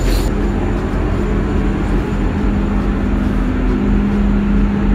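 Steady low rumble and hum of a diesel passenger train, heard from inside the carriage.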